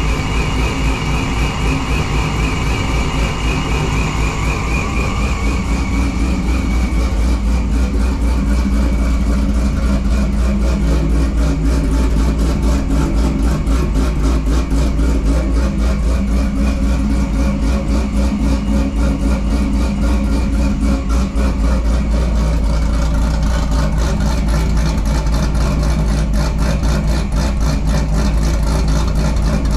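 Supercharged 6.2-litre LS3 V8 of a 2012 Corvette Grand Sport idling steadily while it warms up after a cold start in freezing weather. A high wavering whine sounds over the idle for the first several seconds, then fades out.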